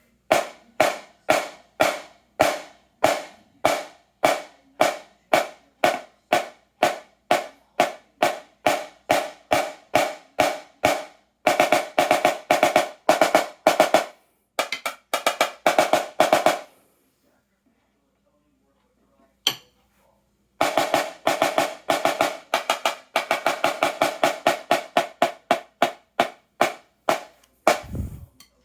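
13x9 marching snare drum played with sticks: steady single strokes, about two or three a second, for some eleven seconds, then faster strokes and rolls. After a pause of a few seconds with a single click, more fast strokes and rolls follow, and a low thump comes near the end.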